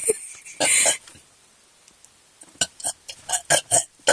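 A girl burping: one loud burp about half a second in, then a quick string of short, choppy vocal bursts near the end.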